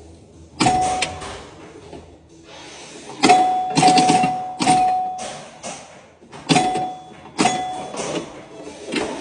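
Antique pinball machine in play: sharp mechanical clacks, most followed by a ringing scoring chime, about six hits coming irregularly with short pauses between.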